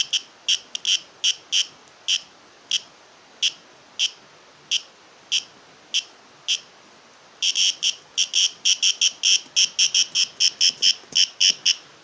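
A series of short, high-pitched animal chirps. They come quickly at first, spread out to about one a second in the middle, then crowd together fast again about three-quarters of the way through.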